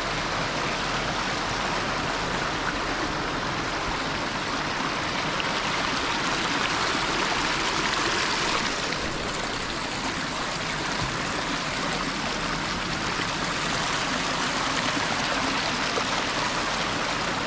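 Swollen stream in flood, water rushing steadily over stones, running high with rain and snowmelt.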